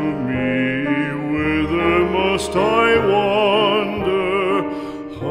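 Classical art song: a trained solo voice singing with wide vibrato over piano accompaniment.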